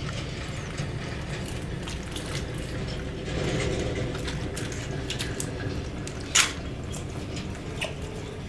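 Hands squelching and scooping through wet mud, with scattered small wet clicks and one louder sharp slap about six and a half seconds in.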